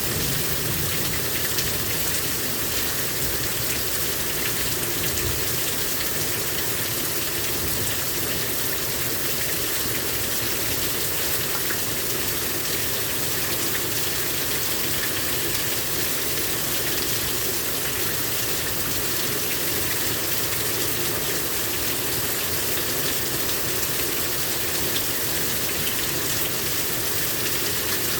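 Heavy rain pouring down in a steady, even downpour during a thunderstorm.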